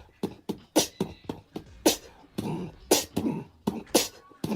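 A quick, uneven run of sharp percussive hits, about three a second, with some vocal sound between them, like a mouth-made beat.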